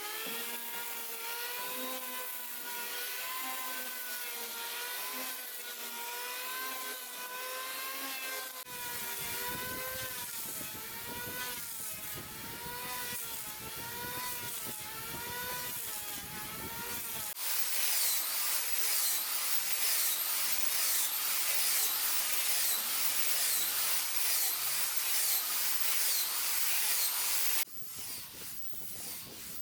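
A handheld power tool's motor whines, its pitch rising and falling about once a second. After a sudden change, a paint spray gun gives off a loud hiss that swells two or three times a second and then cuts off abruptly.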